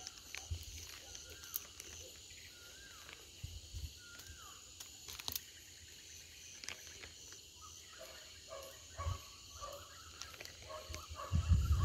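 Night insects such as crickets chirping in a steady, high-pitched, pulsing chorus, with a few faint short warbling calls in the first half. Rustling and low bumps from close handling come in near the end.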